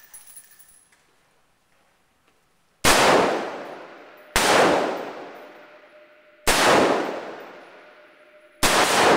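Four rifle shots from M16 service rifles, about one and a half to two seconds apart, starting about three seconds in. Each shot rings out in a long echo off the covered firing line.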